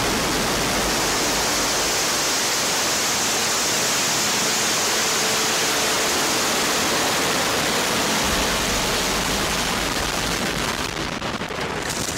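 Soyuz rocket engines firing at liftoff: the four strap-on boosters and the core stage together make a loud, steady rushing noise. The noise eases slightly near the end.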